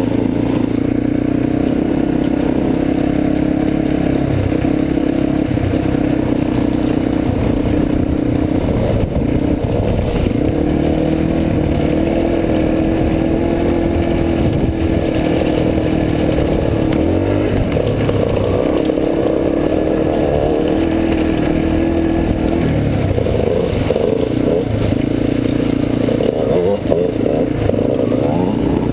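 Dirt bike engine running while riding over gravel, holding a fairly even pitch with several dips and rises as the throttle is eased off and opened again.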